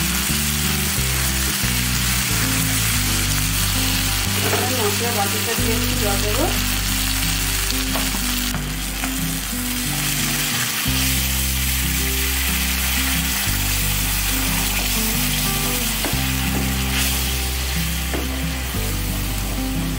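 Onion-tomato spice masala sizzling in hot oil in a frying pan while a wooden spatula stirs and scrapes it. About halfway through, water is poured in and the sizzle changes as the masala thins into a curry. Soft background music with low held notes plays under it.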